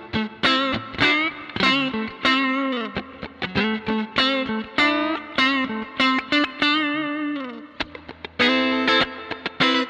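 Stratocaster electric guitar played with the tremolo arm: plucked notes and chords repeatedly dip in pitch and swoop back up. There is one long falling dive about three quarters of the way through.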